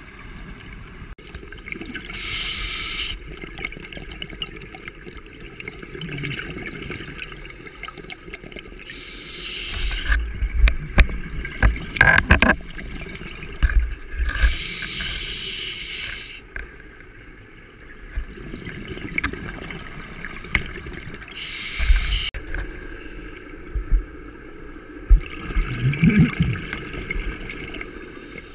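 Scuba diver breathing through a regulator underwater: a hiss and bubbling rush about every six seconds, with low knocks and rumbles in between, heaviest about halfway through.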